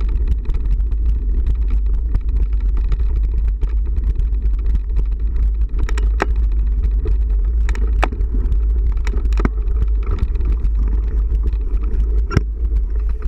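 A motor vehicle driving: a steady, heavy low rumble, with scattered sharp ticks and taps, a few of them louder, about 6 and 12 seconds in.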